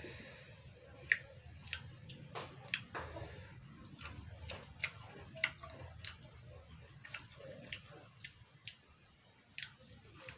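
Close-up eating sounds: irregular crisp clicks and crunches of someone chewing raw fruit rujak with sambal, over a steady low hum.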